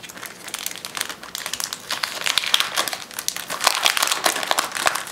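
Plastic packaging crinkling and paper rustling as a wrapped pack of planner insert sheets is handled; the crackling grows busier and louder about two seconds in.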